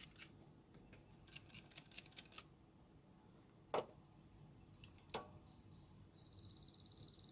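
Mostly near silence, broken by a few faint sharp clicks and knocks, then a brief high buzzing trill near the end.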